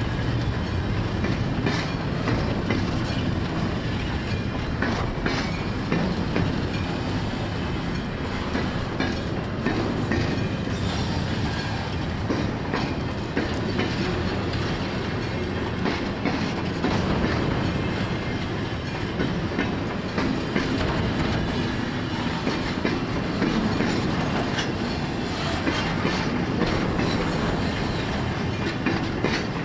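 Freight train of container flatcars rolling past, a steady rumble of wheels on rail with a constant stream of clicks and knocks from the wagons' wheels and couplings.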